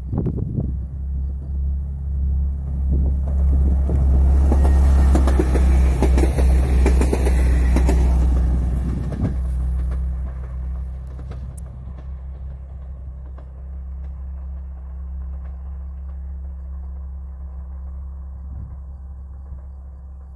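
Regional diesel railcar passing: a steady low engine hum, with a loud rush of wheels on rails that builds to a peak from about three to nine seconds in, then fades, leaving the hum.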